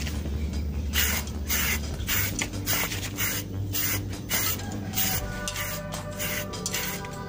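Aerosol spray-paint can fired through a plastic trigger handle in short repeated bursts of hiss, about one or two a second, laying primer grey. Background music plays underneath.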